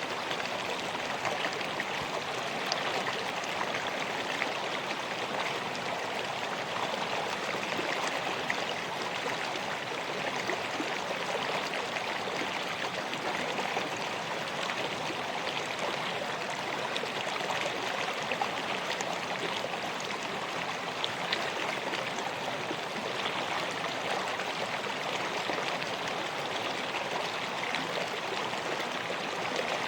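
A river flowing steadily, an even rush of water with small splashes and gurgles throughout.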